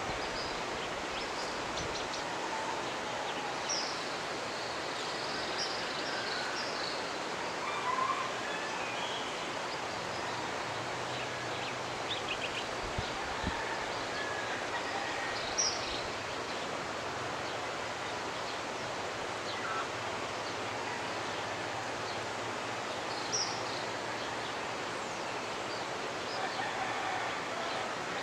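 Mountain river running steadily, with short bird calls and chirps scattered over it.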